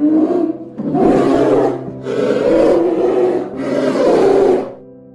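A large animal roaring in four long, hoarse calls of about a second each, over steady background tones.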